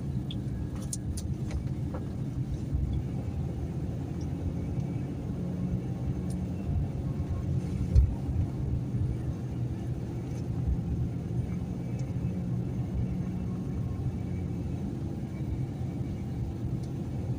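Truck driving slowly, heard from inside the cab: a steady low engine and road rumble, with one short thump about eight seconds in.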